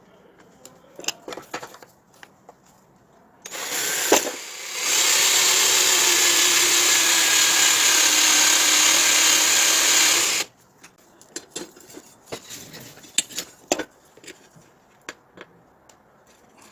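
A power tool runs for about seven seconds: a short start, a brief dip, then a steady run before it cuts off. Small clicks and knocks of handling come before and after it.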